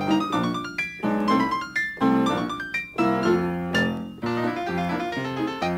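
Piano music, a quick run of short notes and chords.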